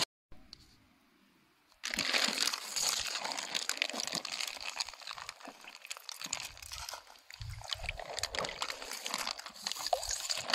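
A plastic bag of minnows in water crinkling as it is handled, mixed with crunching snow and slush, starting after about two seconds of near silence.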